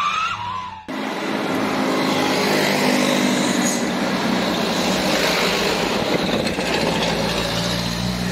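Truck engine running steadily, after a rising whine that cuts off abruptly about a second in.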